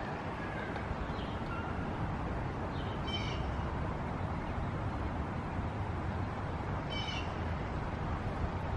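Chickadee calling: two short runs of 'dee' notes, about three seconds in and again about seven seconds in, with a few fainter single notes in the first second and a half, over a steady low background rumble.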